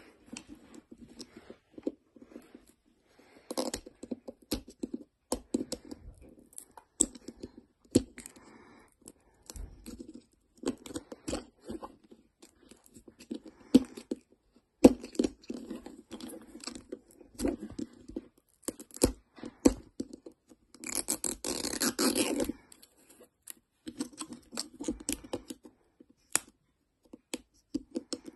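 Plastic shrink-wrap label being peeled and torn off a Toy Mini Brands capsule ball, with crinkling and scattered clicks and taps of the plastic ball against the table. About three quarters of the way through there is one longer, continuous tear.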